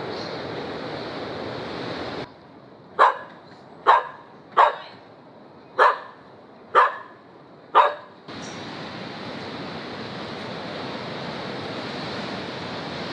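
A dog barks six times, roughly once a second, each bark sharp and loud. The barks come in a quieter stretch between spells of steady rushing noise, which cuts off about two seconds in and returns about eight seconds in.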